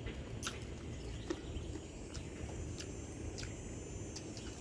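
Outdoor background: a steady low rumble with a faint high steady hiss, a few scattered short clicks and faint bird chirps.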